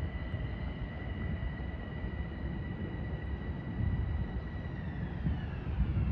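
Train passing: a steady high whine made of several tones over a low rumble, the whine dropping in pitch near the end as it goes by.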